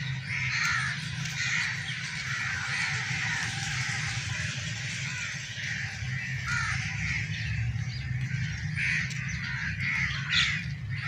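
Crows cawing again and again, calls following one another throughout, over a steady low rumble.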